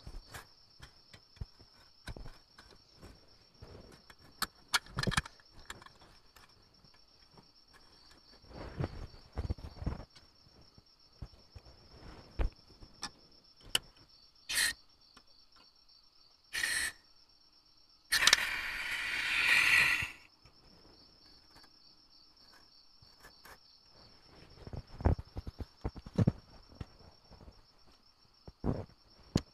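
Crickets chirping in a steady, fast, high trill, over scattered knocks, clicks and rustles of camping gear being handled. About two-thirds of the way through, a loud rushing hiss lasts about two seconds.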